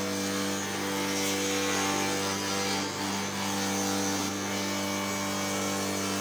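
Wood spindle shaper running with a steady motor hum while its bearing-guided cutter shapes the curved edge of a hand-fed wooden workpiece, giving a continuous cutting noise over the hum.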